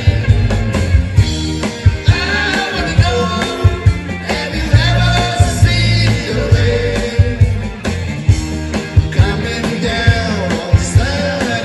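A band playing a rock-style song, with a steady drum beat and strong bass under a sung melody.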